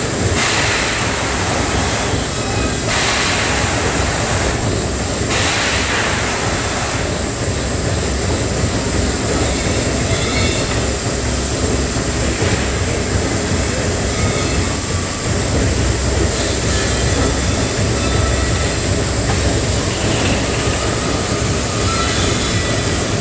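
Steady machinery noise in a sheet-metal factory hall: a low, uneven rumble under a broad hiss, with louder bursts of hiss about two and five seconds in.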